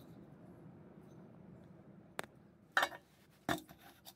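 Three short, sharp knocks of metal on wood, the last two louder, as an old steel spin-on oil filter and a round steel ring are set down on a wooden table.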